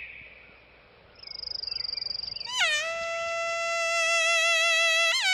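Suona imitating birdsong: a high, fast-fluttering trill, then about halfway through a loud held note with vibrato and a bright, reedy tone. The held note scoops up briefly near the end.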